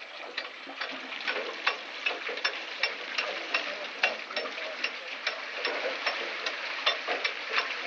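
Hand-turned Persian wheel (rahat) well: its gearing and ratchet pawl clack about two or three times a second as the bucket wheel turns, over the splash of water pouring from the buckets.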